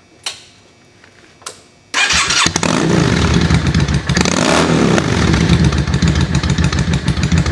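Two short clicks, then a Yamaha V-Star's V-twin engine fires up abruptly about two seconds in and runs loudly, with one throttle blip around the middle. This is the first start after a Baron's Big Air Kit install and a carburetor rejet.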